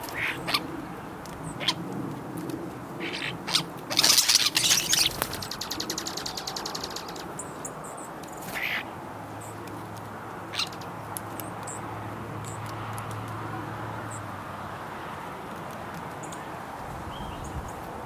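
Common starling calling: scattered clicks and short harsh notes, with a loud harsh burst about four seconds in that runs into a rapid rattle lasting a couple of seconds.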